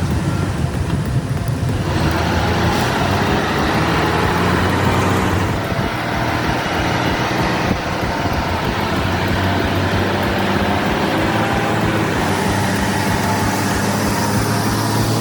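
Heavy truck diesel engines running steadily as a heavy-haulage convoy moves a massive load, a continuous low drone with road noise.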